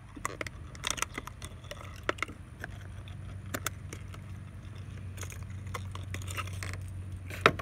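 Plastic lure packaging crackling and clicking as a crankbait is worked free of it by hand: irregular sharp clicks and rustles over a steady low hum.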